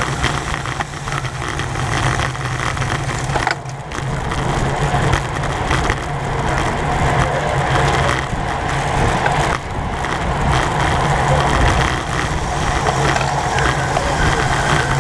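Steady rushing noise of a road bicycle being ridden at race speed: wind on the onboard camera's microphone over tyre and road rumble. The noise dips briefly twice, about 3.5 and 9.5 seconds in.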